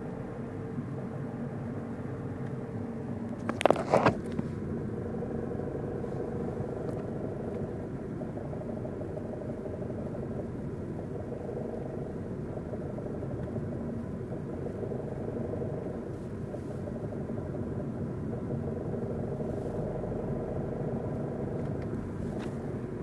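Car cabin noise while cruising in fifth gear: a steady engine and road drone. A brief sharp noise stands out about three and a half seconds in.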